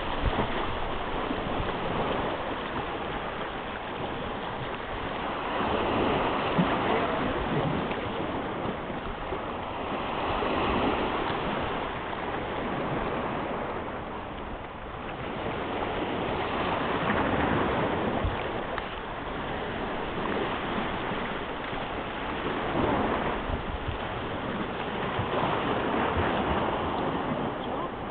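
Small waves washing onto the shore, swelling and fading every few seconds.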